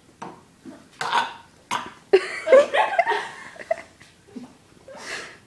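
A person gagging and retching in short, irregular heaves with burp-like sounds, on the verge of throwing up.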